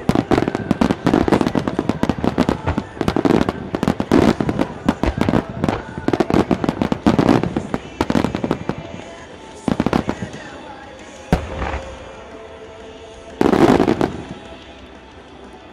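Fireworks display: aerial shells bursting in a rapid barrage, several loud bangs and crackles a second. After about eight seconds it thins to a few scattered booms, with one last loud burst near the end.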